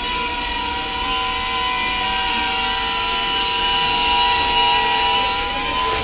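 Small toy quadcopter drone hovering, its propellers and motors giving a steady buzzing whine made of several high tones that waver slightly.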